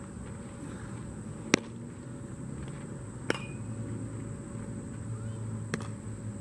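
Three sharp cracks of a baseball being hit and caught in infield practice, the first, about one and a half seconds in, much the loudest, the others roughly two seconds apart, over a steady low outdoor hum.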